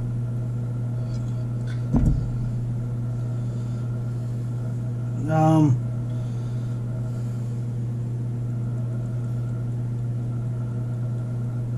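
Steady low hum. A single knock comes about two seconds in, and a man makes a short rising-and-falling vocal sound about five and a half seconds in.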